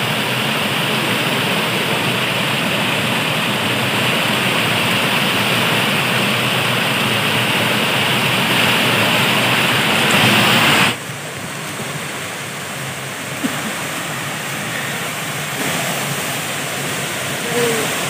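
Steady rush of a jungle river pouring over small waterfalls and rock ledges. About eleven seconds in it drops suddenly to a quieter, steady rush of water.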